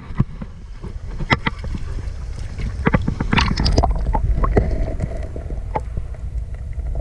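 Water splashing and sloshing, with scattered sharp knocks from handling, as a bass is released by hand beside a kayak. A steady low wind rumble on the microphone runs underneath.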